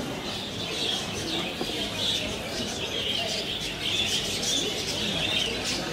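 Many birds chirping at once in a dense, continuous chatter, with some cooing mixed in.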